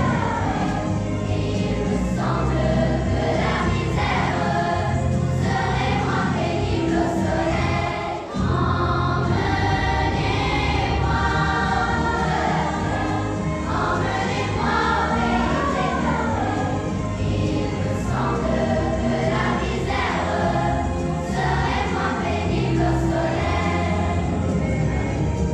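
Children's choir singing a French-language song with instrumental accompaniment and a steady bass line, with a momentary break about eight seconds in.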